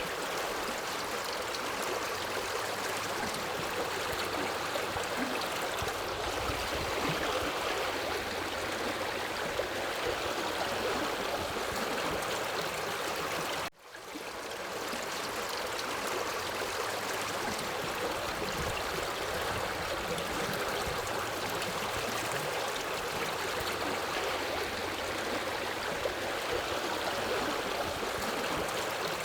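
Forest river flowing, a steady rush of running water. About halfway through, the sound drops out for an instant and fades back in over a second or so.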